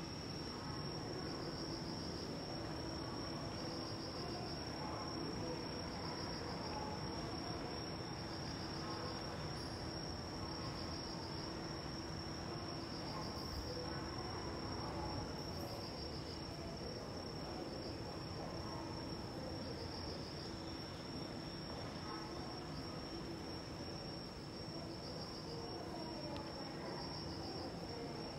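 Insects trilling steadily: a high, continuous trill that swells in a pulse every second or two, over a faint steady low hum.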